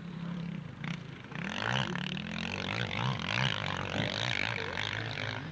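Two-stroke motocross bike, a 1998 Honda CR250, racing around the track: the single-cylinder engine revs up and drops back again and again as the rider works the throttle and shifts, getting louder about a second and a half in.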